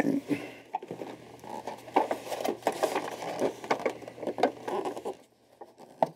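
Close handling noise of hands working small parts of a foam RC model airplane kit: a quick, irregular run of clicks, scrapes and rustles that dies down about five seconds in.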